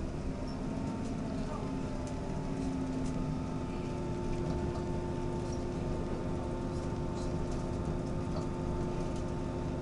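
Diesel passenger train running along, heard from inside the carriage: a steady rumble of wheels on the rails, with a few steady humming tones over it and occasional faint clicks.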